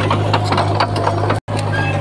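Komatsu crawler bulldozer's diesel engine running with a steady low drone, with repeated clanking and knocking over it. The sound cuts out for an instant about one and a half seconds in.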